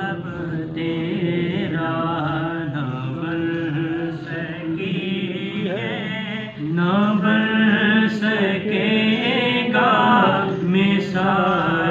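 A man's voice reciting a naat unaccompanied, in long, held, melodic phrases. It grows louder about seven seconds in.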